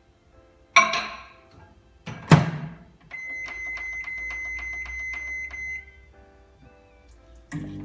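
Kitchen sounds during cooking: two sharp clattering knocks of cookware, then about three seconds of a steady high whine with quick regular ticking from a kitchen appliance, over faint background music.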